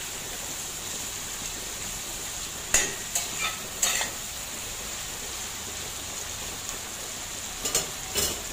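Mushrooms and bell peppers frying in a pan with a steady sizzle, broken by a few sharp scrapes of a utensil stirring against the pan: three near the middle and two near the end.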